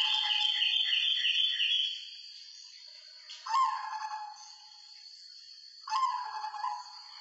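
White zebra dove (perkutut) cooing in its cage. A quick run of pulsed coo notes lasts about two seconds, then two shorter coos follow, one about midway and one near the end, each dropping in pitch and holding.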